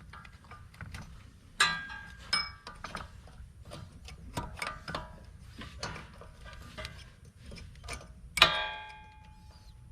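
Metal hand tools clicking, tapping and scraping on steel while a rust-seized front ABS sensor is broken out of the wheel knuckle. A few ringing metal clinks, with the loudest ringing strike near the end.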